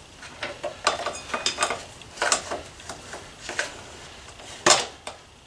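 Irregular metallic clinks and knocks of parts being handled while a motorcycle rear wheel is fitted back in place, with one louder knock near the end.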